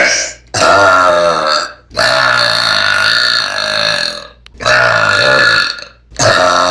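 A string of long, loud burps, one after another. A short one comes right at the start, followed by four drawn-out, low-pitched burps of one to two seconds each, separated by brief abrupt gaps.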